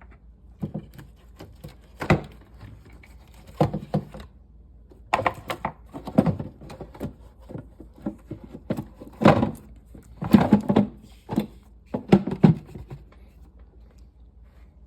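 Irregular knocks and plastic clatter as the air filter housing cover is handled and worked back into place over the new filter.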